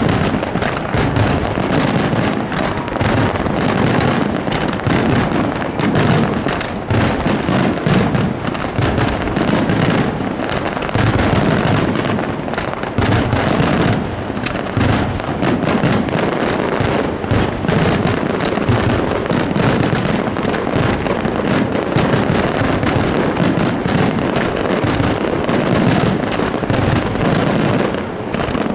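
Aerial fireworks bursting directly overhead at close range in a dense, unbroken barrage of booms and crackles.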